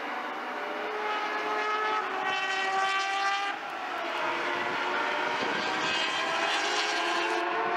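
Several race car engines running at high revs around the circuit, their pitch rising and falling as they pass.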